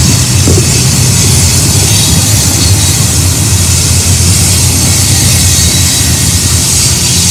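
Freight train's covered hopper cars rolling past close by: a loud, steady rumble of steel wheels on the rails.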